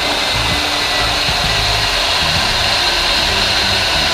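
Electric drill running steadily as a 3/8-inch bit bores into the top of a white plastic plug; it starts abruptly and cuts off near the end.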